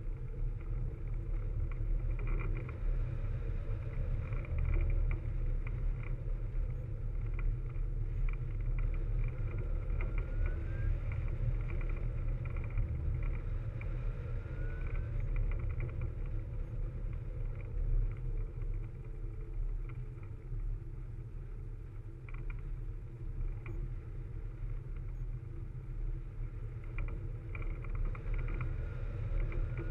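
Steady low rumble of wind rushing over a hang glider's wing-mounted camera microphone in flight, with a few faint short rising whistles.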